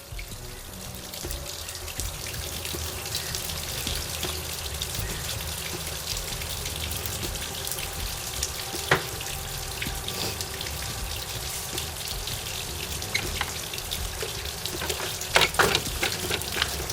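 Water hissing and splashing from the garden-hose flushing hookup on an outboard motor, steady throughout, over a low rumble. There is a sharp click about halfway through and a few more near the end.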